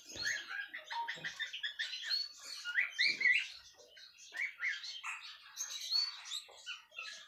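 Canaries chirping: a steady, irregular stream of short, quick call notes, many of them rising in pitch.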